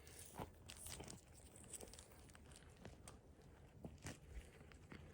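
Near silence with faint scattered rustles and light clicks, several over a few seconds: hands sifting through forest-floor leaf litter and soil and picking up pottery shards.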